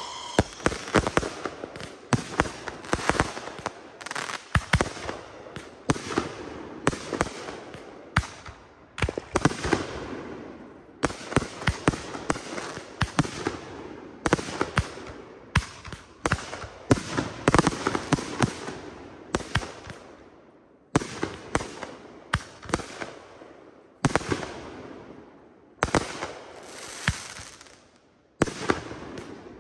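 Consumer aerial fireworks going off: many sharp bangs of shells bursting in quick succession, with crackling between them, in volleys that break off abruptly a few times.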